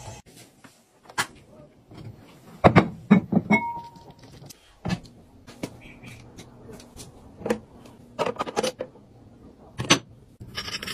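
Kitchenware being handled: a series of separate knocks and clatters of dishes, a plate and a plastic steamer basket being set down and moved, with a short steady high tone about three and a half seconds in.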